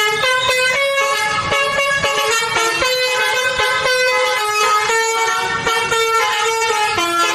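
A tune played on horn sounds, loud held notes stepping up and down in pitch about every half second, ending on a lower note; in this train guessing game it goes with the cartoon locomotives, as if they are sounding their horns.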